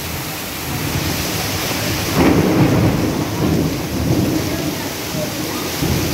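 Heavy rain pouring steadily, with a low rumble of thunder swelling about two seconds in and rolling on for a couple of seconds.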